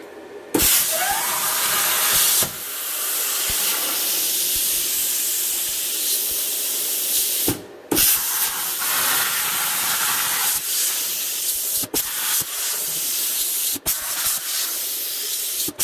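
Plasma cutter torch on a CNC table cutting eighth-inch steel plate: a loud steady hiss of the arc and air jet. It starts about half a second in, stops briefly a little past the middle as the torch moves between holes, and breaks off for an instant a few more times near the end.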